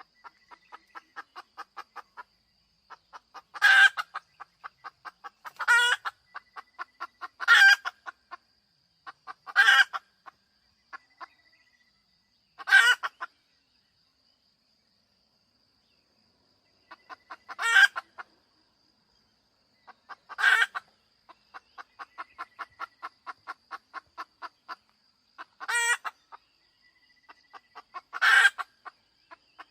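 A hen cackling: runs of quick clucks, several a second, each ending in a loud squawk, about nine times, with a pause of a few seconds near the middle.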